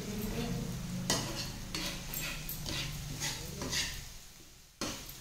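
Spoon scraping and stirring thick masala paste frying in a kadhai, in a run of quick strokes about three a second, then a single sharp knock near the end.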